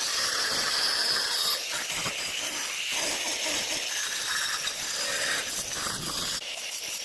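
Grinder grinding rust off the rusted metal base plate of a washing machine's inner drum: a steady harsh rasp with a high whine over it, easing a little about six and a half seconds in.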